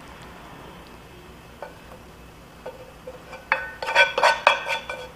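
A wooden spatula scraping a nonstick frying pan and tapping against it as stir-fried food is scooped out onto a plate. A few soft scrapes come first; then, from about three and a half seconds in, a quick run of clinks and knocks, each leaving the pan ringing.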